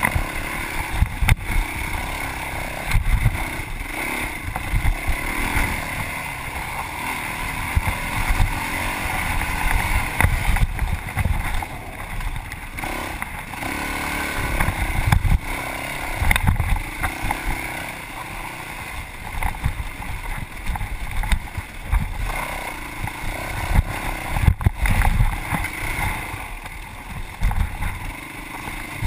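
Yamaha WR450F's single-cylinder four-stroke engine running under changing throttle as the dirt bike is ridden, with frequent low thumps and occasional sharp knocks.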